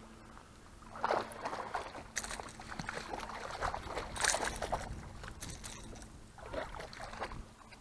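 Water splashing and sloshing in irregular bursts, likely a hooked bass thrashing at the surface beside the boat, over a faint steady low hum.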